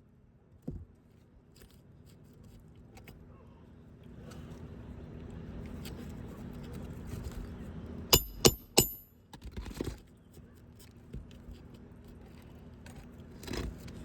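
A metal hand tool striking three times in quick succession with a bright metallic ring, a little after the middle, amid scraping and clicking from handling asphalt roof shingles.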